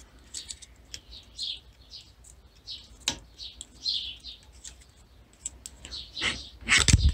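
A bowstring end serving is being wound back by hand inside a loop of serving thread, giving soft rubbing and light clicks. Faint high chirps come about twice a second throughout, and a short loud burst comes near the end.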